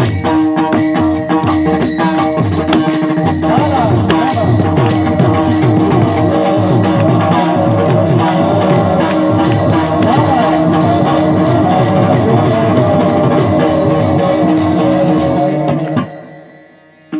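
Instrumental interlude of Indian devotional music: a fast, steady percussion beat over a held drone note, with a wavering melody line joining about three and a half seconds in. The music stops about sixteen seconds in and dies away.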